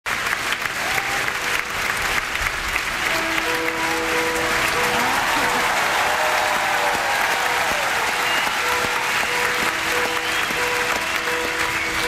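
A large stadium crowd applauding and cheering. About three seconds in, acoustic guitar notes begin ringing under the applause, opening a song.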